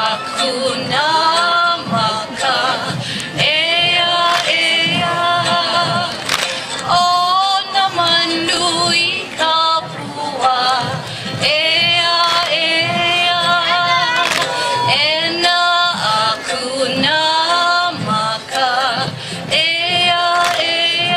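A group of voices singing in unison, accompanied by sharp, recurring strikes of ipu gourd drums.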